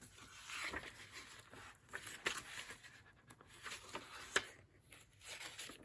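Faint rustling of paper as an old hardback book is opened and its pages are turned, with a few light ticks along the way.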